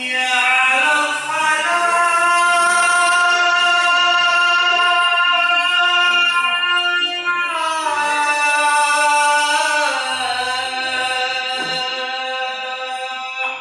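Vocal music: long held sung notes that step to new pitches twice, cutting off suddenly at the end.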